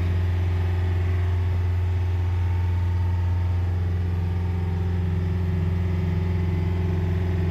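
Yanmar marine diesel inboard engine running steadily at close to 3000 rpm, a constant low drone heard from inside the boat's cabin.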